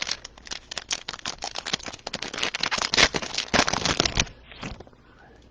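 Trading-card pack wrapper crinkling and cards rustling as they are handled, a dense run of crackles and clicks that dies away after about four seconds.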